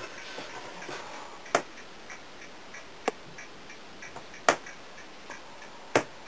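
Regular ticking: faint ticks in a steady rhythm, with a sharper click about every second and a half.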